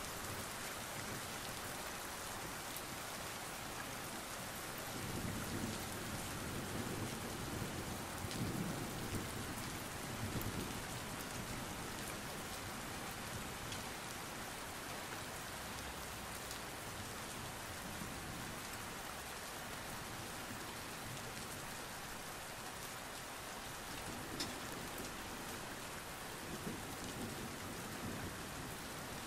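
Steady rain falling on a hard street, an even hiss with a few sharp drips. A low rumble swells up about five seconds in and lasts several seconds, and a fainter one comes near the end.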